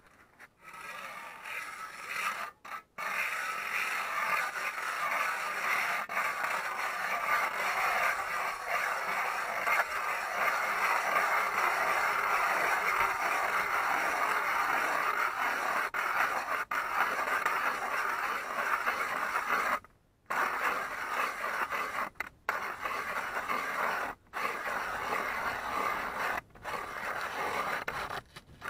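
Rapala ProSelect two-piece telescopic hand ice auger being cranked into lake ice, its blades cutting with a continuous grinding scrape. The scraping stops for a moment a few times, mostly in the last third, as the cranking pauses.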